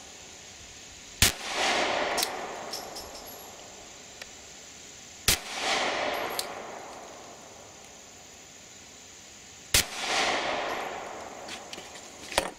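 Glock 43 9mm subcompact pistol fired three times, about four seconds apart, each shot followed by a short echo.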